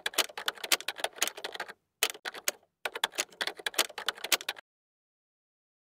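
Typing sound effect: rapid runs of key clicks with two short pauses, stopping abruptly about four and a half seconds in.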